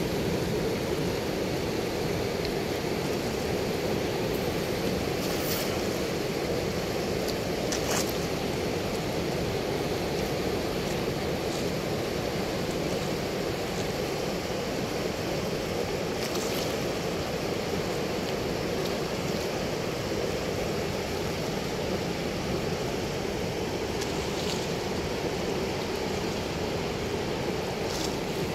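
Steady rush of water pouring through a weir's sluice gate, even and unbroken, with a few faint ticks.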